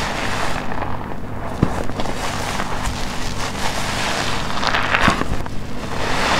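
Soapy, foam-filled sponge being squeezed: wet squishing with crackling of popping foam bubbles, swelling louder about five seconds in and again near the end.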